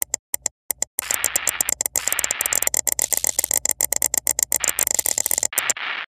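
Electronic glitch sound effect: a few scattered clicks, then from about a second in a dense run of rapid clicks over harsh static, ending in a short static burst that cuts off.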